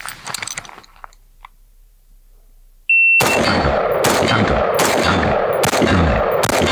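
A shot timer gives one short high beep, and right after it an AR-style semi-automatic rifle fires five shots, about 0.8 s apart. The shooter waits for the red dot to settle before each shot.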